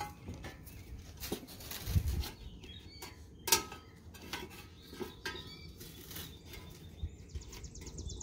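Plastic recoil starter pulley of a Toro Recycler mower being turned and wound by hand, with scattered light clicks and knocks; one sharper click about three and a half seconds in.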